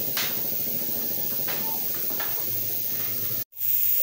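A steady hiss of background noise, with a few light clinks as a broken clay lid is set onto a clay pot. The sound drops out for an instant near the end.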